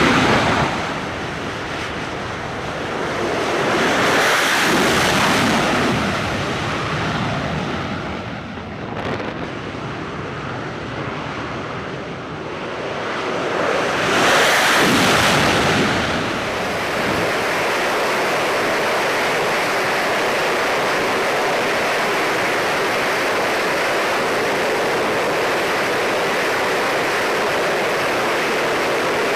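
Sea waves surging and washing with wind on the microphone, swelling up and falling back a few times, then settling into a steady rushing for the second half.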